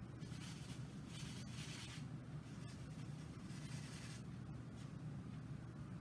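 Paintbrush rubbing through acrylic paint on a plastic palette plate: two stretches of soft, scratchy scrubbing, over a steady low hum.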